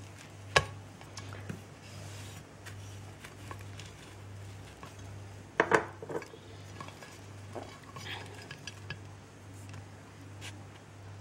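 Baked salt-dough crust being cracked and lifted open by hand on a ceramic plate: scattered crackles, clinks and knocks against the plate. There is a sharp knock about half a second in and a cluster of louder ones near six seconds, over a steady low hum.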